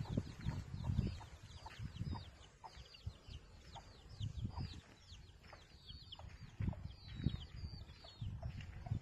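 Chickens clucking and peeping, a quick run of high, falling peeps that fades out near the end, over low thumps and rumbles on the microphone.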